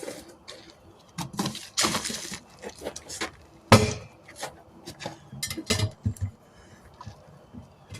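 Hand tire tools clanking and scraping against a wheel rim as a tire is pried off by hand, a run of short metallic knocks with one sharp bang just under four seconds in.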